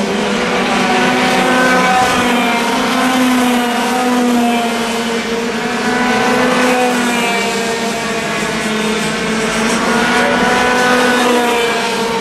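A pack of Junior TKM racing karts' two-stroke engines running at high revs, several engine notes overlapping, their pitch wavering up and down as the karts accelerate and lift through the corners.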